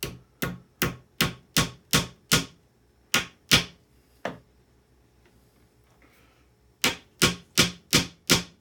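Hammer driving 1.5-inch panel nails into lightweight furring-strip wood: a run of about ten strikes at a steady beat of roughly two and a half a second, a pause, then another run of about six near the end.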